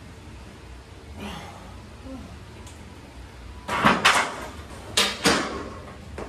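A heavy barbell back squat being finished and racked. There are two pairs of loud, short bursts, one about four seconds in and one about five seconds in, as the lifter stands up and walks the loaded bar back into the rack.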